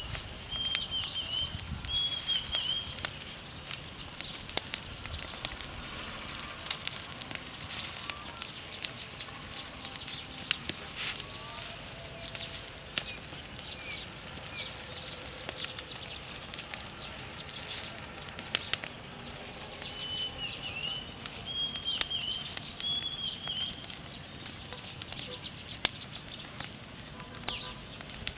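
A small open fire of dry twigs and leaf litter burning, crackling with irregular sharp snaps and pops. A bird calls a few short chirps near the start and again about two-thirds of the way through.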